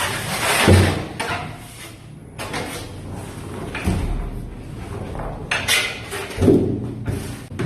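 Cardboard packaging being handled while the scooter is unpacked: scraping and rustling, with a few dull knocks.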